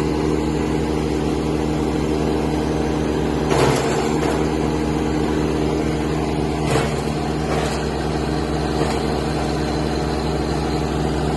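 Tractor-mounted wood chipper/shredder driven by a Kubota tractor engine, running steadily. A few short sharp cracks sound over it, the loudest about four seconds in and others near seven, eight and nine seconds.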